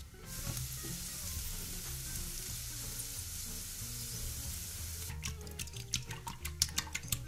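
Food sizzling as it fries in a pan. About five seconds in, the sizzle gives way to a quick run of sharp clicks and taps.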